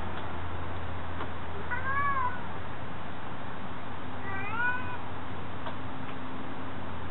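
A tabby cat meowing twice: a short call that rises and falls about two seconds in, then a second that rises, about two and a half seconds later. A steady low hum runs underneath.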